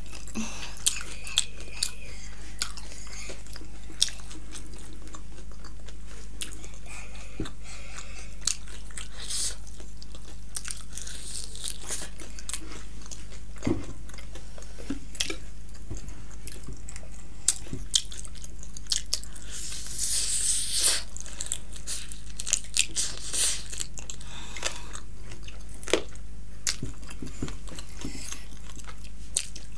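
Close-miked chewing and biting of fried chicken lollipops, with scattered wet smacks and sharp crunchy clicks, over a steady low hum.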